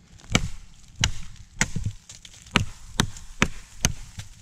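TOPS Bushcrafter Kukri 7.0 machete chopping into a thick branch of hardwood that looks like beech: about seven sharp blows, roughly half a second apart.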